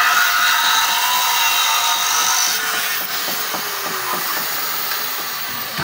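A corded power tool running steadily against the steel frame, a dense hiss with a thin high whine that stops about two and a half seconds in.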